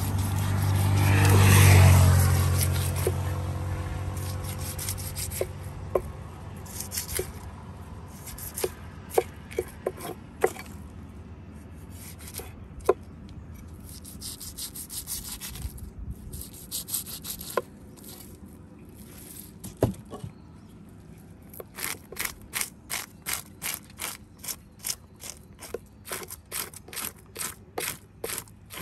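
A large knife scraping and cutting a fish on a wooden chopping block: scattered scrapes and taps at first, then about seven seconds before the end steady, quick scraping strokes, about three a second, as the blade scales the fish. A low rumble swells and fades in the first few seconds.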